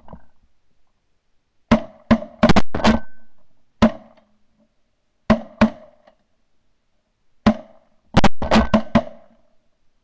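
A volley of shotgun shots from several guns: about a dozen sharp reports, fired in quick bunches with short pauses between them.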